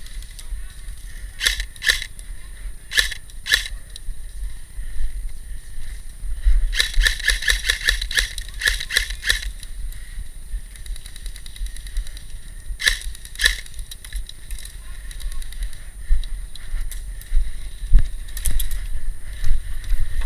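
Airsoft gunfire: scattered single sharp shots, then a rapid string of about twenty shots around seven seconds in lasting nearly three seconds, then a few more shots later. Low wind rumble on the microphone runs underneath.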